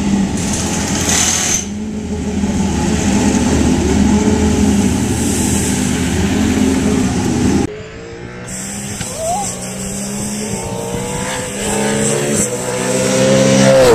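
V8 Supercar engine running steadily at low revs. After an abrupt cut about eight seconds in, a V8 Supercar engine approaches on the track, its note rising and growing louder to a peak at the end.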